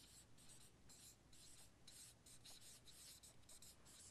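Marker writing on a flip-chart paper pad: a quick run of short, faint, high strokes as the letters are written.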